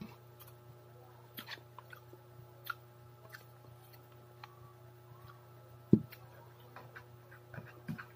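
A metal fork clicking and scraping in a plastic takeout tray, with eating sounds, over a faint steady hum; one louder knock about six seconds in.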